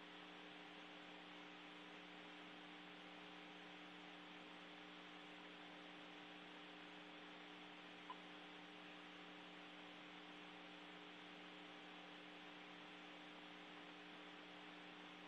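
Near silence: a faint steady hum with hiss, and one brief faint blip about eight seconds in.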